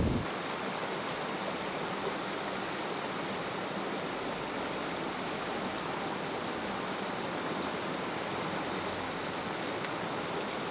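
Shallow mountain stream flowing over rocks: a steady, even rush of water.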